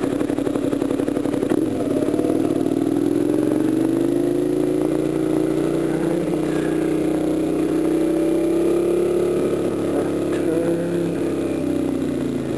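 Kawasaki Ninja 250 motorcycle engine with a slip-on exhaust, heard from the rider's helmet: its note climbs steadily for several seconds as the bike accelerates, then eases back down near the end. Wind rushes over the helmet throughout.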